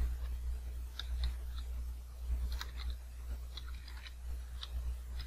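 Computer keyboard keys clicking in short irregular runs as a search term is typed, over a steady low hum.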